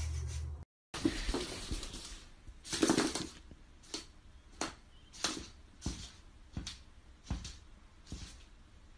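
A bearded dragon's claws scraping and tapping on a mirror. A burst of scraping about three seconds in, then a run of sharp taps roughly every two-thirds of a second.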